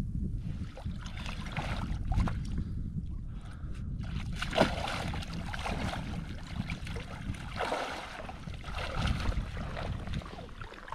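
Water sloshing and splashing in irregular surges as someone wades through a shallow rock pool, with wind rumbling on the microphone underneath.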